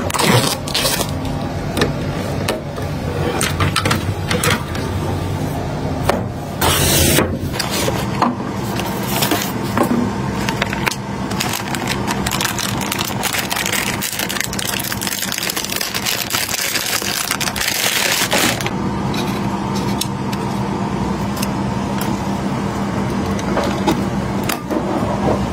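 Gloved hands handling computer hardware and its packaging: many short clicks, scrapes and rustles over a steady background hum that grows stronger about two-thirds of the way in.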